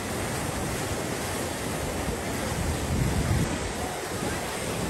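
Muddy floodwater rushing and churning along a river in flood: a steady rush of water, swelling briefly and louder in the low range about three seconds in.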